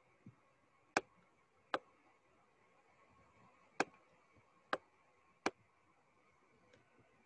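Five sharp, irregularly spaced clicks of a computer mouse button, over a faint steady hiss.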